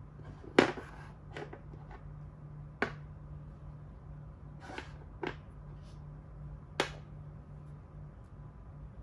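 Plastic Thai chess (makruk) pieces clicking against the board as they are picked up and set down: about six short, sharp taps, the loudest about half a second in. A faint steady low hum runs underneath.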